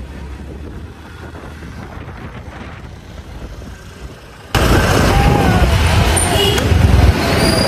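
Wind buffeting the microphone and road noise while riding a two-wheeler through traffic: a low rumble that turns suddenly much louder and rougher about four and a half seconds in.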